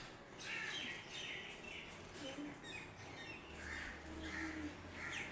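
Birds chirping: short, separate high chirps about once a second over faint background noise.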